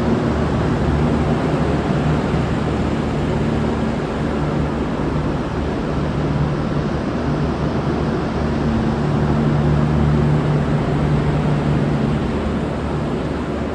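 V/Line VLocity diesel railcar's underfloor diesel engines running steadily with a low hum and a rushing noise, swelling slightly around the middle.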